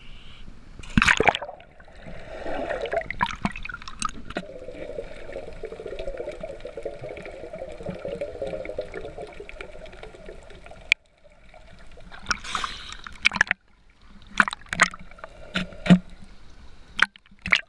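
A person plunging into the sea with a loud splash about a second in, then muffled water sound heard with the microphone underwater. Near the end comes a run of sharp clicks and small splashes.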